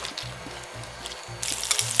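Soft background music, and about one and a half seconds in, chopped green onions start sizzling and popping in hot oil in a frying pan.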